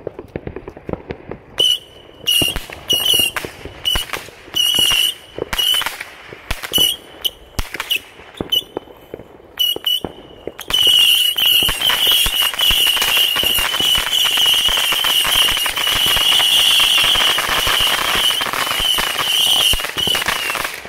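Ground fountain firework with a whistling effect, spewing sparks with a shrill high whistle over hiss. The whistle comes in short spurts for the first half, then runs on continuously for about ten seconds and stops just before the end.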